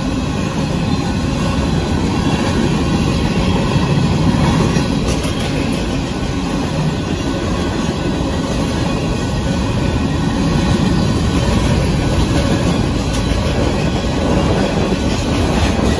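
Union Pacific freight train of covered hopper cars rolling past, a loud, steady rumble of steel wheels on the rails.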